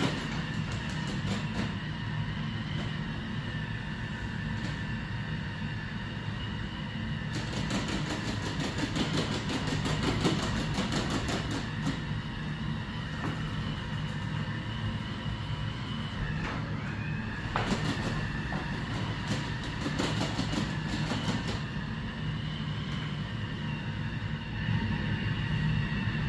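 Roomba robot vacuum running in mopping mode: a steady motor whine over a low hum, with many small clicks. The whine dips briefly in pitch a little past the middle.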